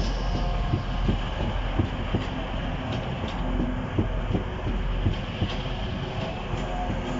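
Diesel train moving slowly through the station, its wheels knocking irregularly over rail joints and points above a steady low engine rumble.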